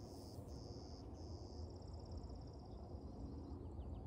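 Faint, high-pitched insect trilling, steady apart from two brief breaks in the first second or so, fading out about three and a half seconds in, over a low outdoor rumble.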